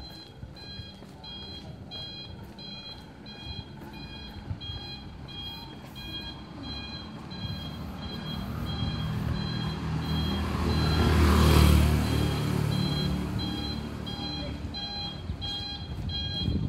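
A motor vehicle's engine grows louder, passes close by about eleven to twelve seconds in, then fades. Under it, a high two-tone electronic beep repeats evenly a few times a second throughout.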